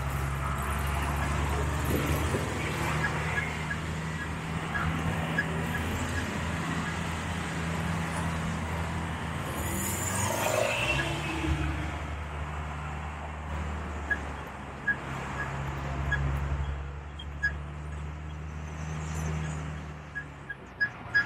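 Tour bus engine running with a steady low drone, heard from on board. About halfway through there is a short hiss and the engine note briefly dips. Light ticks come and go in the second half.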